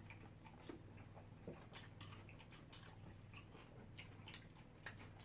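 Faint chewing and eating sounds, scattered soft clicks and smacks over a steady low hum.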